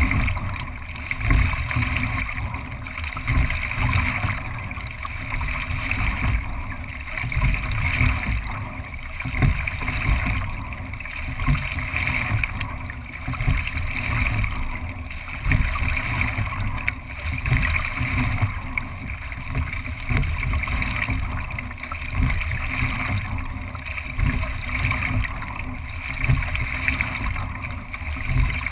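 Single racing scull under way: water rushing along the hull and wind buffeting the deck-mounted microphone, swelling with each stroke about every two seconds.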